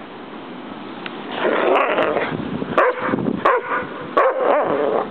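A dog barking several times, starting about a second and a half in.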